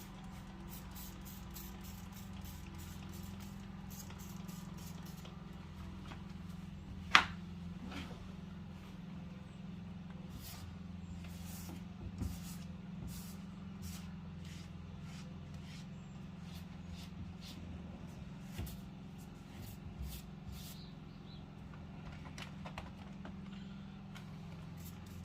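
Car interior being cleaned by hand: a string of short hissy squirts and light clicks over a steady low hum, with one sharp click about seven seconds in.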